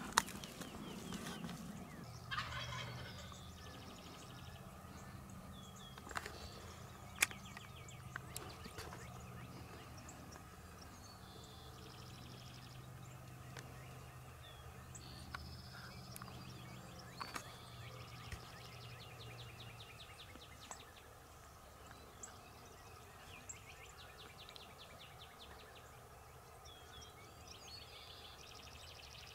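Faint gobbling of wild Rio Grande turkey gobblers, a quick rattling call heard several times, the first about two seconds in and more near the end.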